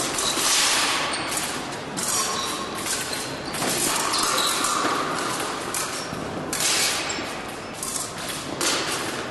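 Noise of an épée fencing bout in a sports hall: an irregular run of scuffs, stamps and clatter from fencers' footwork and blade contact, with no clear pauses.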